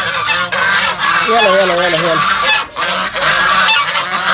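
A flock of geese honking loudly, many harsh calls overlapping without a break, as they clamour for a tray of food being set down for them.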